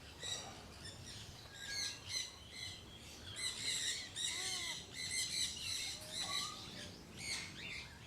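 Big aviary birds squawking: a run of short, harsh calls repeating every half second or so.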